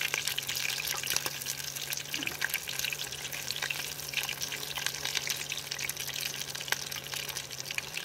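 Hot oil sizzling and crackling as battered small river fish deep-fry in a pot, a dense hiss full of fine pops, with a steady low hum underneath.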